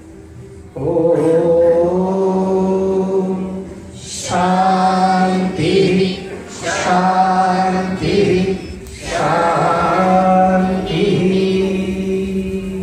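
A man singing a Hindi devotional bhajan through a microphone and PA, drawing out long wavering notes in four phrases with short breaths between them, over a steady low drone.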